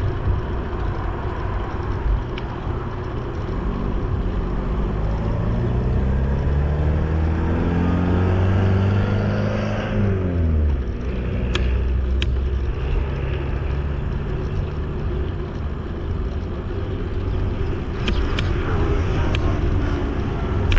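A motor vehicle accelerating past, its engine note rising for several seconds and then dropping sharply as it goes by about ten seconds in. Underneath is a steady rumble of rolling and wind noise from the bicycle ride, with a few sharp clicks later on.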